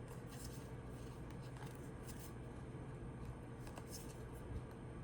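Faint rustling and light clicks of tarot cards being handled and slid against each other, a few soft strokes spread through, over a steady low room hum.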